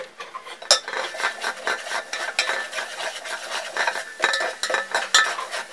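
Spatula scraping and stirring around a metal pot, turning fresh mint and coriander leaves into a thick masala: a quick, uneven run of scrapes and knocks against the pot, the sharpest about a second in.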